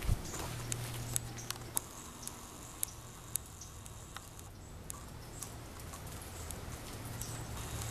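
Scattered light clicks and taps at irregular intervals, over a faint low hum that fades out after the first couple of seconds and returns near the end.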